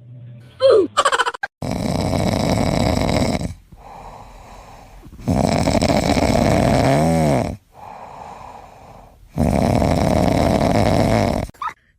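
Loud snoring in three long snores of about two seconds each, roughly four seconds apart, with quieter breathing between them. A short, sharp sound comes just before the first snore.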